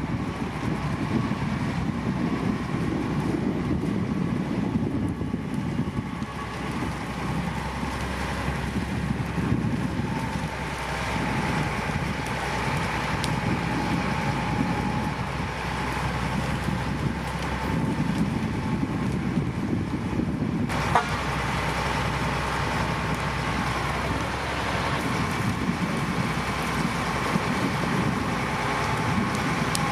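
Heavy diesel earthmoving machinery (bulldozer and dump trucks) running steadily under load, with a high steady whine over the engine note and one sharp click about two-thirds of the way through.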